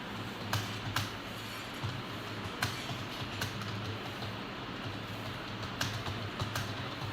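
Computer keyboard keys being typed at an uneven pace, a few sharp clicks a second over a low steady hum.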